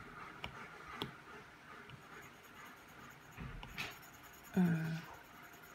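Apple Pencil tip tapping and sliding on the iPad's glass screen: a few light taps. About four and a half seconds in comes a short hum from a voice, the loudest sound here.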